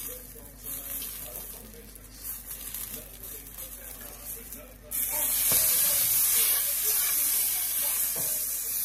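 Eggplant slice frying in a nonstick pan with a soft sizzle; about five seconds in, it is turned with tongs and the sizzle jumps suddenly to a loud, steady hiss as steam rises.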